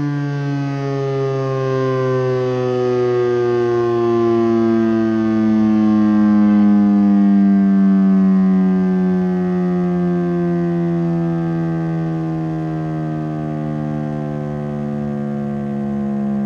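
Federal Signal STL-10A electromechanical outdoor warning siren winding down at the end of its noon blast, its pitch falling slowly and steadily throughout. It gets a little louder around the middle.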